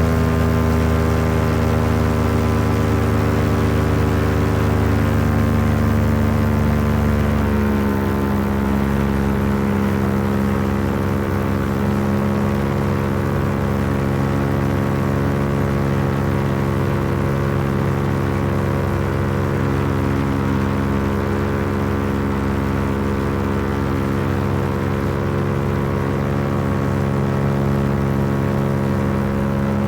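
Paramotor engine and propeller running steadily in flight, the engine note stepping down slightly about eight seconds in and holding there.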